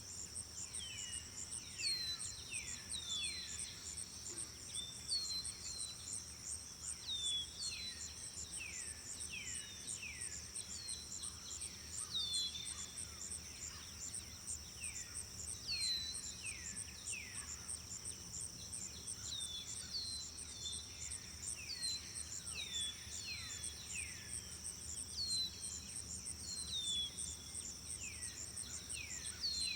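Outdoor nature ambience. A steady, high insect chorus like crickets pulses rapidly throughout, and short whistled calls keep falling in pitch, often several in a row.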